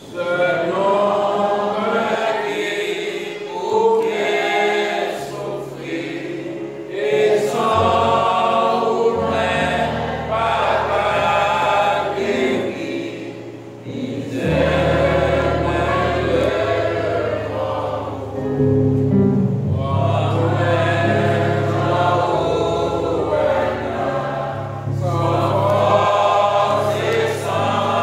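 A group of voices singing a gospel hymn together, joined about five seconds in by sustained low bass notes that step from pitch to pitch.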